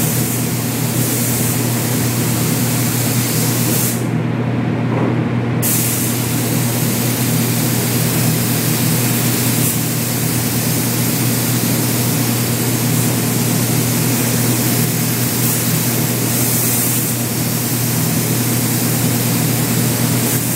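Gravity-feed compressed-air paint spray gun hissing steadily as paint is laid on, over a steady low hum. The hiss cuts out for about a second and a half, about four seconds in, as the trigger is let off.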